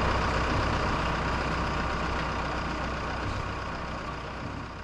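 Marine travel lift's engine running steadily, with a low hum and a hiss over it, getting gradually quieter.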